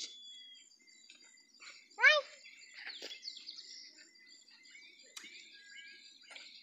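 Birds chirping and calling outdoors: one loud, short harsh call about two seconds in, then many small high chirps over thin steady high tones.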